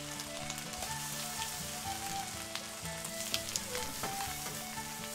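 Batter-soaked bread slices frying in butter in a pan over open coals: a steady sizzle with scattered sharp pops and crackles.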